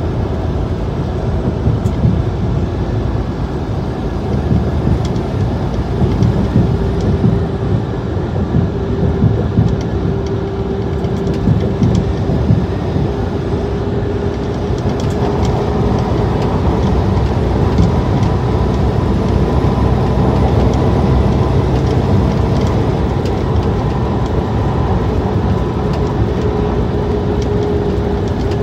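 Steady road and engine rumble inside a truck cab cruising on the highway, with a steady drone that grows stronger about halfway through.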